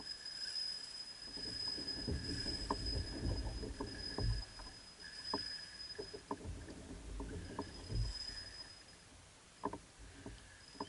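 Kayak handling noise as an angler fights a hooked fish on rod and reel: low rumbling and knocks of the hull and gear with water against the hull, and irregular sharp clicks. A faint steady high-pitched whine runs underneath.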